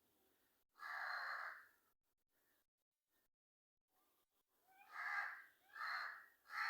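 Crow cawing: one harsh caw about a second in, then three quick caws in a row near the end.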